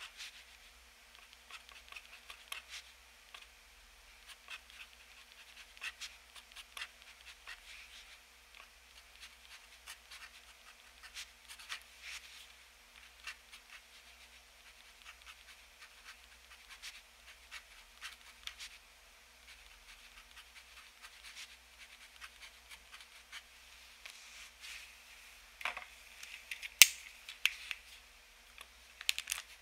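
Extra-fine steel nib of a TWSBI ECO fountain pen scratching and ticking across paper as handwritten characters are written stroke by stroke. Near the end, a few louder clicks as a correction tape dispenser is picked up and pressed to the page.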